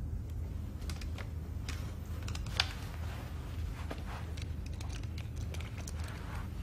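A low steady room hum with scattered small clicks and rustles of movement, the sharpest click about two and a half seconds in.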